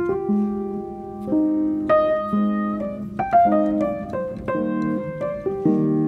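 Background piano music: sustained chords and single notes, with a quicker run of notes about halfway through.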